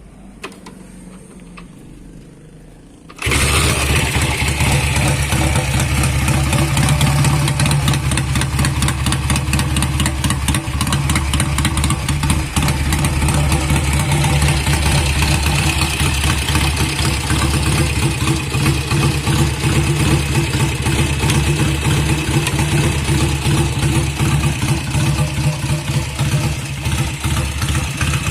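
A 1961 Norton Jubilee 250cc parallel-twin motorcycle engine is started from cold: it fires and catches suddenly about three seconds in, then runs steadily and loudly.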